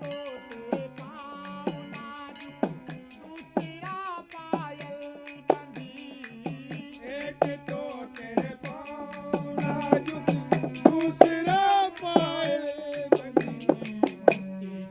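Background music: a singing voice over a steady beat of jingling, tambourine-like percussion.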